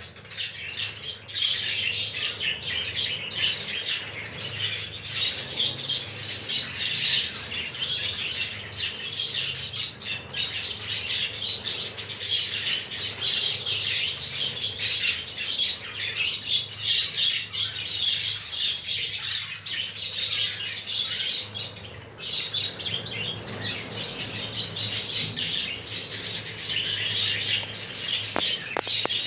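A large flock of budgerigars chattering and chirping without pause, with wings fluttering as birds take off and land. The chatter eases briefly about three quarters of the way through.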